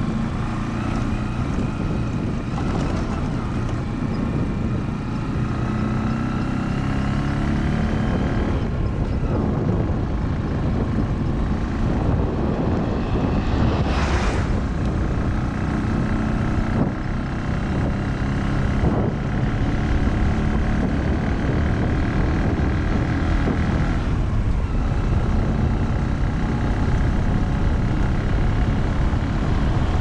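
The running engine of the vehicle carrying the camera, with road and wind noise. The engine pitch rises and falls as the speed changes, and there are short whooshes a few times.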